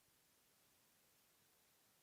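Near silence: a gap in the stream's music.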